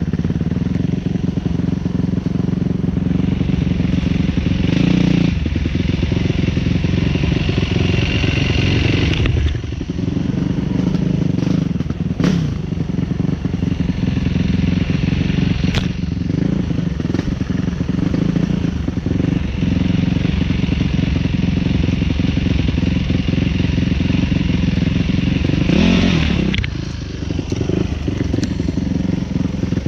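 Enduro dirt bike engine running close up, its revs rising and falling as it rides over rough ground. A couple of sharp knocks come about a third and halfway through, and the engine eases off briefly twice.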